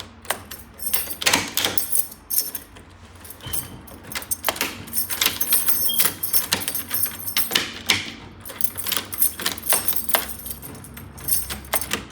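Keys and metal lock hardware being handled: a run of irregular metallic clicks, taps and jingles.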